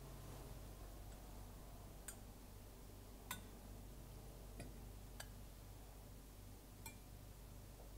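Faint, scattered clinks and taps, about five in all, from glass cruets and the chalice being handled as the wine and water are prepared, over a low steady room hum.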